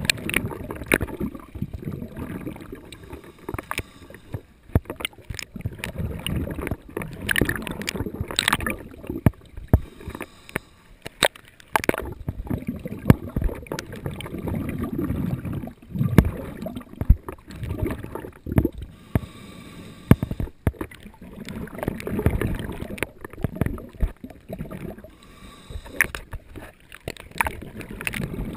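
Water sloshing and gurgling around a swimming diver, in irregular surges every few seconds with scattered knocks.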